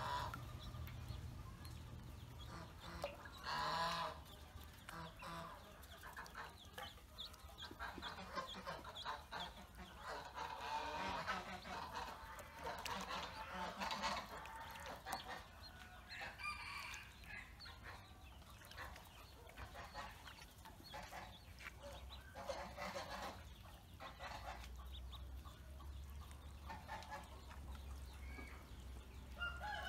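A group of ducklings peeping, many short high calls overlapping, busiest around the middle, with small splashes as they paddle in a metal basin of water.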